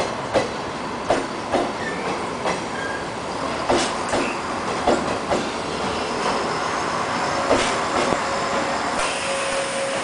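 JR West 105 series three-car electric train rolling into a station platform, its wheels clacking irregularly over rail joints and points. About nine seconds in, a steady squeal sets in and holds.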